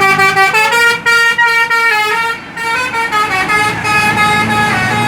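Bus 'telolet' multi-tone horn playing a tune: a quick string of loud musical notes stepping up and down in pitch, with a short break about halfway through.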